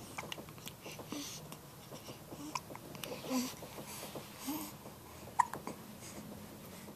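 A baby hiccuping: short, sudden hiccups with small babbling sounds between them, the sharpest about five and a half seconds in.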